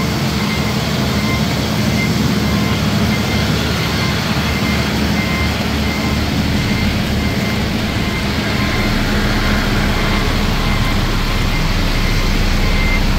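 Engine of road-construction machinery running steadily, with a reversing alarm beeping at intervals, over the steady hiss of rain.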